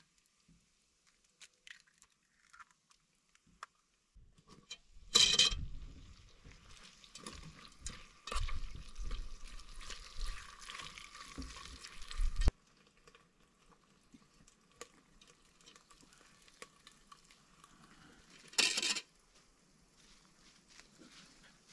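Camp cooking sounds: a utensil stirring and knocking against a pot or pan, with a sizzling hiss for several seconds that cuts off abruptly about halfway through.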